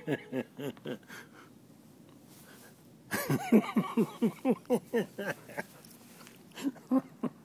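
A person's voice in quick, regular pulses about five a second: a short run at the start and a longer one from about three seconds in, without clear words.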